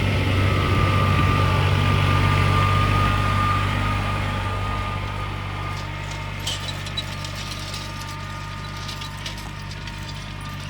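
A vehicle engine running steadily with a low hum, growing quieter after about four seconds. Light clicks and rattles come through in the second half.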